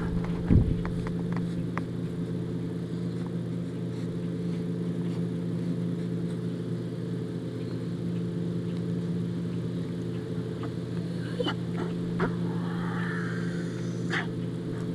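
A husky chewing and crunching a raw whole chicken, bones and feathers included: scattered short sharp crunches and clicks, with a thump about half a second in, over a steady low engine-like hum that is the loudest sound.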